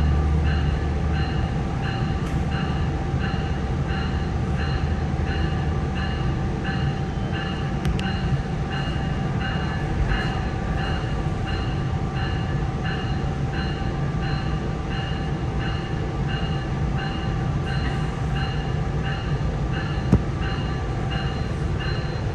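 Cabin sound of a Nippon Sharyo two-car diesel multiple unit running at speed: a steady low rumble of engine and wheels on rail, with a light, even ticking about twice a second. The low engine drone eases back about a second in, and there is a single sharp click near the end.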